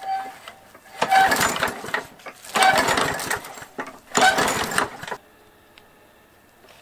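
Walk-behind lawn mower's small engine being pull-started three times: each pull of the recoil starter turns the engine over for about a second, and it doesn't keep running. The engine had not been starting and has just been given fresh gas and a new spark plug.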